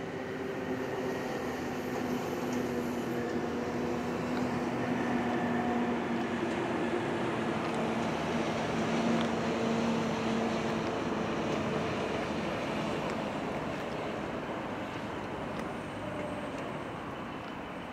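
Traffic noise from a motor vehicle passing slowly by. The engine and tyre noise swells to a peak about halfway through, then fades.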